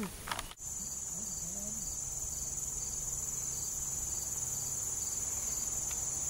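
Steady, high-pitched insect chorus, typical of crickets in summer. It starts abruptly about half a second in, where the clip cuts in.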